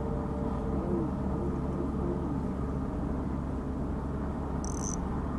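Steady low engine drone with an even hum, unchanging, plus a brief high-pitched buzz about five seconds in.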